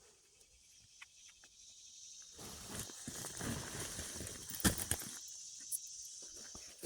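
Dry rustling and crackling, building about two and a half seconds in, with many small clicks and one sharp snap near the middle, then easing off.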